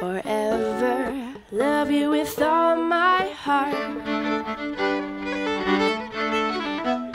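Acoustic folk music: a song ends over mandolin, then about halfway through two fiddles come in together playing a jig in quick, even rhythm.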